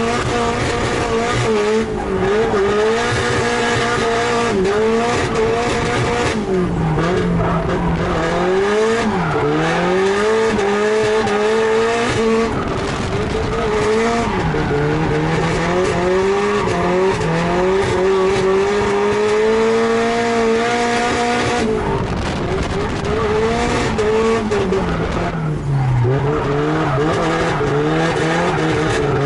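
Nissan S13 drift car's engine heard from inside the cabin, revving high under throttle while drifting, with tyre squeal underneath. The pitch climbs steadily and drops sharply at lift-offs and shifts, about a third of the way in, around halfway, and near the end.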